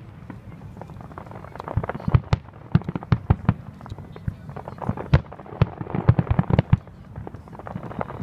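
Aerial fireworks shells bursting: a quick run of sharp bangs and crackling pops that starts about two seconds in and dies away near the end.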